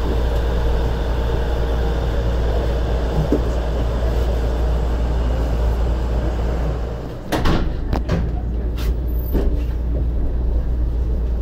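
Steady low hum and rushing noise inside a Shonan Monorail 5000-series car standing still with its onboard equipment running. About seven seconds in the noise briefly dips, then a few sharp clicks and knocks come over the next two seconds.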